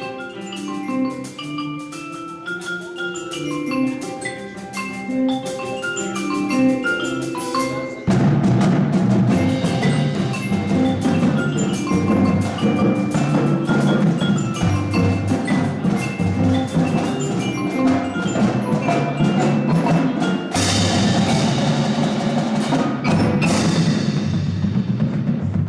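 High school indoor percussion ensemble performing. Mallet keyboard instruments play a quieter stepping melodic line, then about eight seconds in the full ensemble comes in louder and denser. Near the end a bright sustained wash rings over the top.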